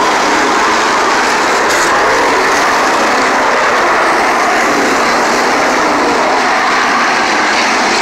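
A pack of 305 sprint cars racing on a dirt oval, their V8 engines running loud and steady and overlapping as the cars go past.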